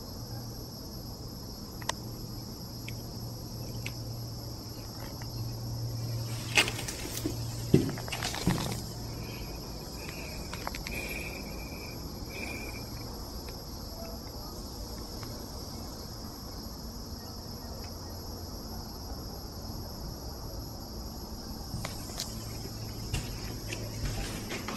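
A steady, high-pitched chorus of insects, with a low hum underneath for the first few seconds and again near the end. A few sharp knocks come about seven to eight seconds in.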